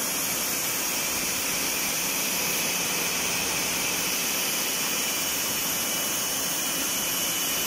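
High-pressure washer jet spraying water onto metal-mesh air-handling-unit filters, a continuous steady hiss with a faint high steady tone beneath it, washing the dust out of the filter mesh.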